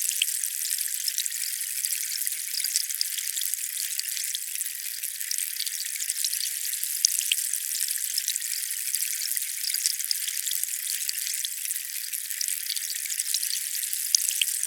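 Steady hiss of water, thin and bright with no low end, dotted with small drip-like ticks.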